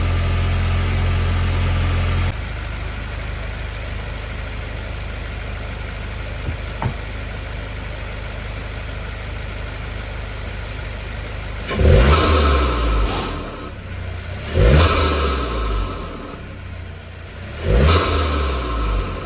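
VW GTI Mk8's 2.0-litre turbocharged four-cylinder, fitted with a freshly installed CTS turbo inlet, idling steadily, its idle dropping a step about two seconds in. In the second half the engine is revved three times in short blips, each rising sharply and falling back to idle.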